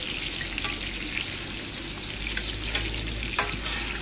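Chicken pieces sizzling in oil on a large flat metal griddle, with metal spatulas scraping and clinking on the plate as they are turned; one sharper clink comes near the end.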